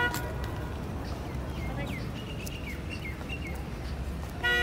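Street traffic rumble with small birds chirping for a couple of seconds in the middle, and a short horn toot near the end.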